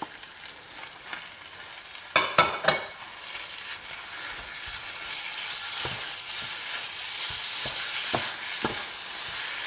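Minced-meat filling sizzling in a frying pan while a wooden spatula stirs and scrapes it. The sizzle grows louder from about halfway. There is a cluster of sharp knocks about two seconds in, and a few lighter taps of the spatula on the pan near the end.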